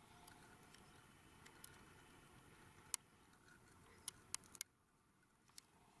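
Near silence: a faint background hush with a few sharp clicks, one about three seconds in and three close together a little after four seconds.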